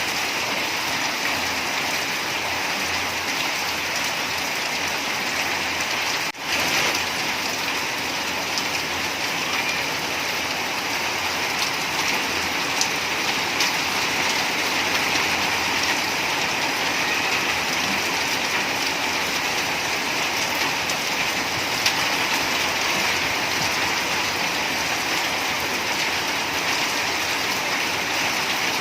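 Steady rain falling, an even hiss throughout, broken by a sharp momentary drop in level about six seconds in.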